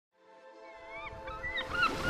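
Soft held music chord fading in from silence, with short repeated bird calls growing louder over it and a wash of noise coming in near the end.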